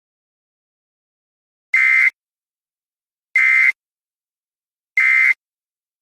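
Three short, identical buzzing bursts of Emergency Alert System digital data tones, about a second and a half apart: the end-of-message code that closes the broadcast alert.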